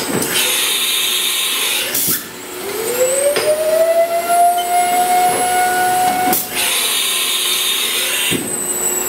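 Air turbine spindle in a CNC mill spinning up on compressed air: a whine rises for about a second, holds steady at the spindle's running speed of around 40,000 RPM, and stops about six and a half seconds in. Hissing air starts and stops before and after it.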